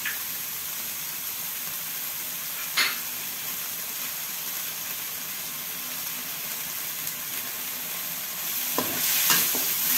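Blended spice paste with lemongrass, ginger and leaves frying in oil in a wok, a steady sizzle. A single sharp tap about three seconds in, and louder knocking and stirring noise near the end.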